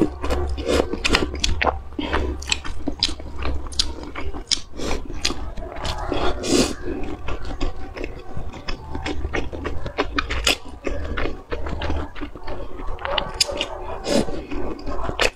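Close-miked mouth sounds of eating spicy instant noodles: slurping strands off chopsticks and chewing, with many wet clicks and smacks and a longer slurp about six seconds in, over a low steady hum.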